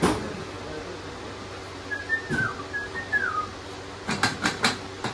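Metal knocks and clinks from an axle shaft being worked into a Ford 9-inch axle housing: a sharp knock at the start, a duller one about two seconds in, and a quick run of about five clinks near the end as the shaft catches. In between come two pairs of short falling whistle-like squeaks.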